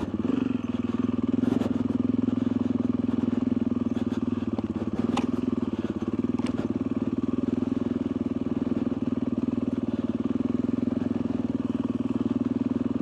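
Motorcycle engine running at a steady, even speed, its pitch holding level throughout, with a few faint clicks over it.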